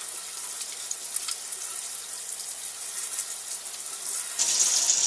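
Kitchen faucet running into a stainless steel sink, a steady rush of water splashing over hands held under the stream. The splashing grows fuller and a little louder near the end.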